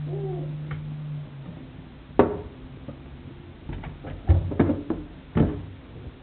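Knocks and clatter from jointing a raw whole chicken with a kitchen knife over a stainless-steel sink and plastic plate: one sharp knock about two seconds in, then a cluster of knocks near the end. A low steady hum stops a little over a second in.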